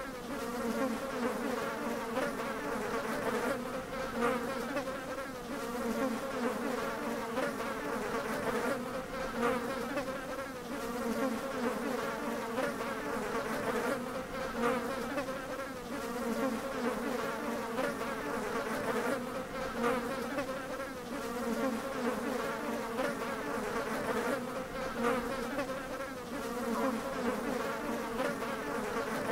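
A steady low buzz that wavers slightly in loudness and carries on without a break.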